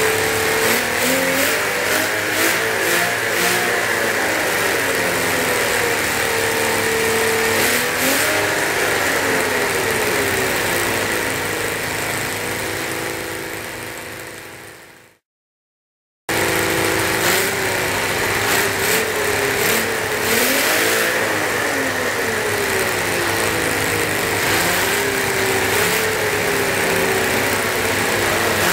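Miniature 87 cc air-cooled V12 model engine, running on methanol with 15% nitromethane, running with its revs rising and falling. About halfway through, the sound fades out to a second of silence, then the engine comes back suddenly, still revving up and down.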